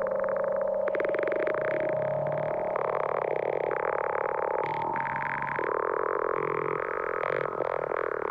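Electronic, synthesizer-like sound effect: a rapid buzzing pulse over a held tone, which about three seconds in breaks into a warbling sequence of tones that changes pitch and texture every second or so.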